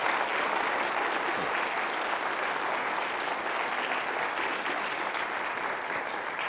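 Audience applauding steadily, a dense even clapping that fades slightly near the end: the applause closing a talk.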